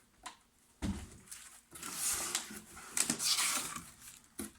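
Rustling and handling of packaging as items are taken out of a shipping box, with a thump about a second in.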